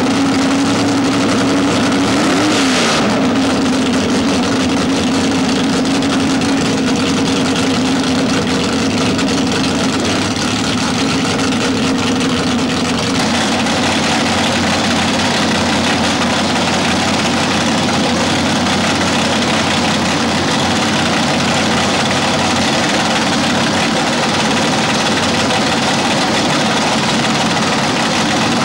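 Loud hot-rod engine idling, blipped briefly about two to three seconds in. About halfway through, the sound changes to another engine idling.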